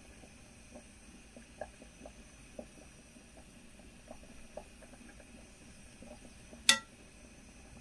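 A utensil fluffing cooked rice and peas in a pot: soft, scattered scrapes and small ticks as the grains are lifted and turned, with one sharp clink against the pot near the end.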